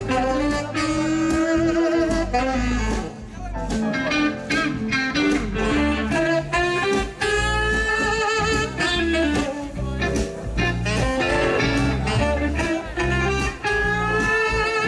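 Music: a song with guitar accompaniment in a jazzy, bluesy style.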